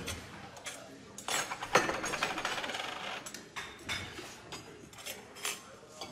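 Metal spoons clinking and scraping against small soup bowls: scattered sharp clinks, the loudest a little under two seconds in, with a stretch of busier scraping around it.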